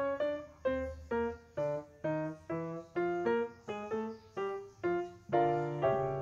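Background piano music: a gentle melody of single notes, each struck and fading, about two to three notes a second.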